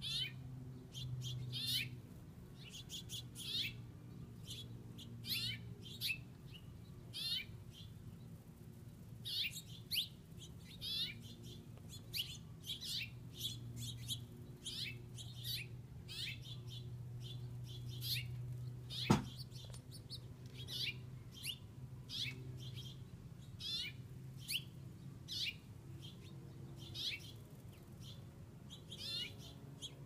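A flock of house finches chirping: short, high chirps one or two a second throughout. A steady low hum runs underneath, and a single sharp click comes about two-thirds of the way through.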